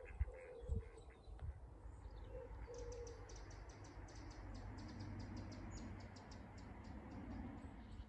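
Mallards quacking faintly on a pool, with a rapid run of faint high ticks from about two seconds in.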